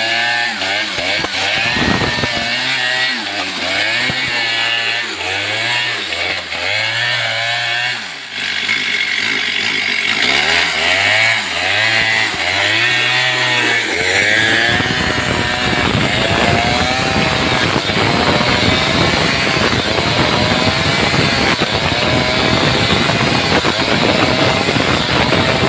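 Stihl chainsaw engine revving up and down repeatedly, then held at high revs and running steadily, as when cutting through the trunk, for about the second half.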